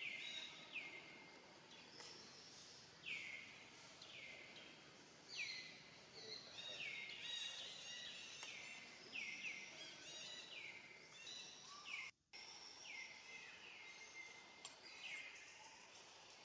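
Faint bird calls: a series of short notes, each falling in pitch, repeated about once a second over quiet outdoor background, with a momentary drop-out of all sound about twelve seconds in.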